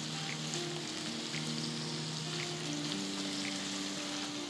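Sliced onions sizzling steadily in hot oil and ghee in a kadai as they are stirred with a spatula, frying toward golden brown. Soft background music with held notes plays underneath.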